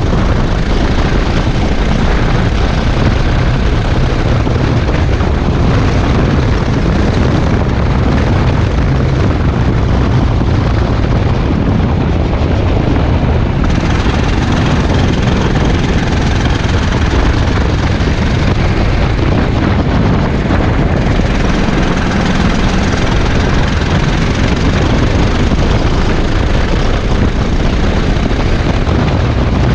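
Go-kart engine running hard at racing speed, heard onboard and mixed with wind noise on the microphone, loud and steady throughout.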